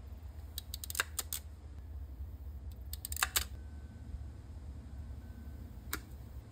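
Wire-stripping pliers clicking and snipping as battery cable is stripped and fitted with crimp terminals. There is a cluster of clicks about a second in, another around three seconds, and a single click near the end, over a low steady rumble.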